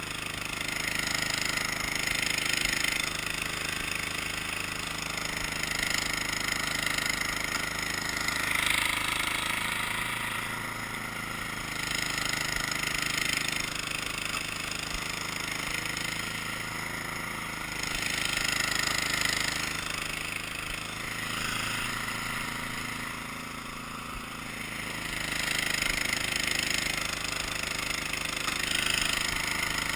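Cub Cadet engine running steadily, its sound swelling and fading several times.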